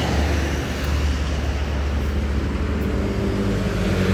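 Road traffic passing close: a truck's low, steady engine rumble, then a motorcycle engine going by near the end.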